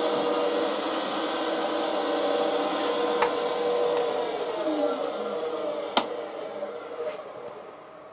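Surface grinder running with a steady hum, then switched off about four seconds in and winding down, its pitch falling and the sound fading away. Sharp clicks sound three times, the loudest about six seconds in.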